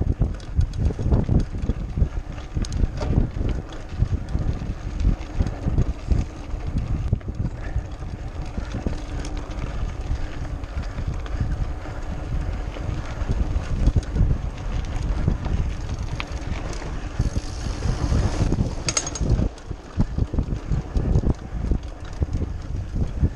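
Mountain bike ridden over a bumpy dirt track, with wind buffeting the camera microphone and the bike rattling and knocking over the ruts. There is a brief high-pitched hiss about three quarters of the way through.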